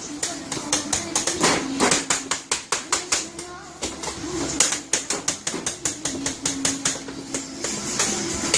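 Rapid, fast repeated knocking strikes, about five a second, kept up without a break: someone working very quickly with a hand tool.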